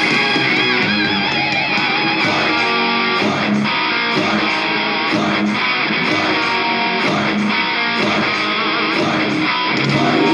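Rock band instrumental break: electric guitar playing a lead line with wavering, vibrato-bent notes over strummed rhythm guitar, bass and a steady drum beat.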